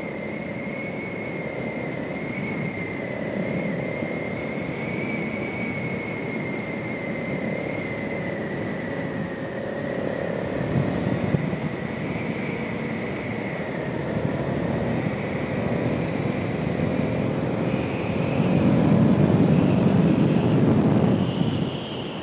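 2020 Honda Africa Twin's parallel-twin engine running while riding along at road speed, heard from on the bike with wind rush over the microphone. It swells louder about eighteen seconds in, then eases back near the end.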